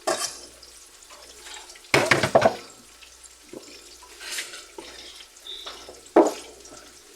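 Water at a kitchen sink splashing as pieces of food are rinsed under the tap, in several short bursts, the loudest about two seconds in.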